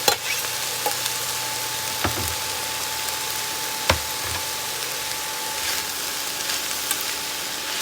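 Chopped vegetables, chickpeas and soy curls sizzling in a hot frying pan, a steady hiss, with a few short knocks, the loudest about four seconds in.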